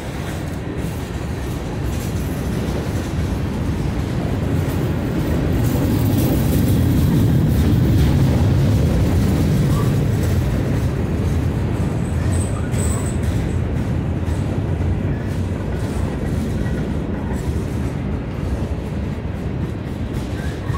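Freight train cars rolling past close by: covered hoppers, coil cars and tank cars. Steel wheels on rail make a steady low rumble that swells to its loudest about a third of the way through, with light clicking throughout and a brief high squeal a little past halfway.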